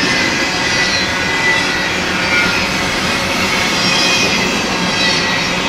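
Double-stack intermodal well cars rolling past: a steady rush of steel wheels on rail, with faint high squealing tones drifting in and out.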